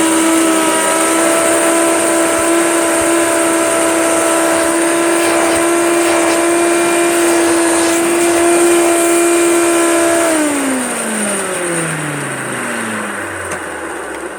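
Hoover Turbomaster upright vacuum cleaner running steadily with a high motor whine. It is switched off about ten seconds in, and the motor winds down with a falling pitch.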